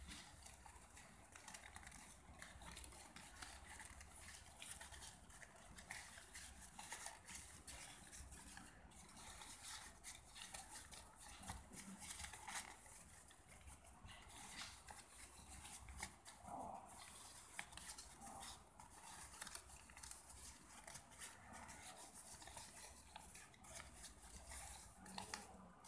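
Faint crinkling and rustling of a crumpled sheet of paper being unfolded by hand, with irregular crackles.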